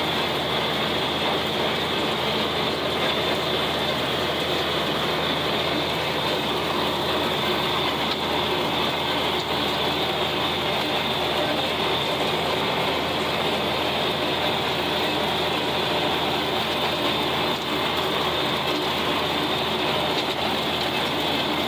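John Deere 4020 tractor's six-cylinder engine running steadily under load, heard from the operator's seat. It is pulling a rotary cutter (brush hog), whose blades and drive add a steady mechanical noise.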